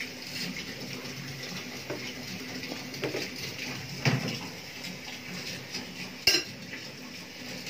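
A few clinks and knocks of a metal utensil against a stainless steel cooking pot, the loudest about four seconds in and a sharp one a little after six seconds.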